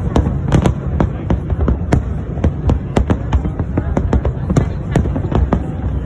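Fireworks display: aerial shells bursting in a rapid, irregular barrage of sharp bangs, about two to three a second, over a continuous low rumble.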